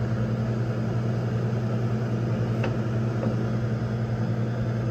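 Reach-in cooler's replacement hermetic refrigeration compressor (1/3 to 2/5 hp) running with a steady hum, with a faint tick about halfway through. It is running after the clogged capillary tube has been cleared and refrigerant is flowing again.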